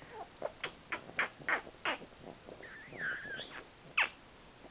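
A rapid run of about seven smacking kisses on a four-month-old baby's face, then the baby's high, wavering squeal of a laugh, and one more loud kiss near the end.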